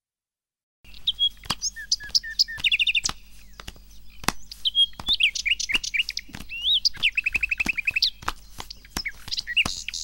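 Several birds chirping and twittering, with quick trills and sharp call notes, starting about a second in after dead silence.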